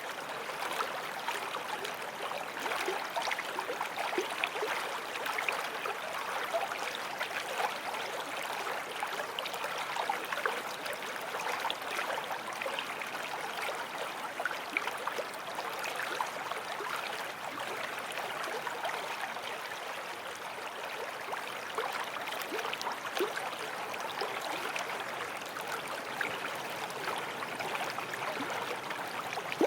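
Forest stream flowing over rocks: a steady rush of water with fine splashing and gurgling.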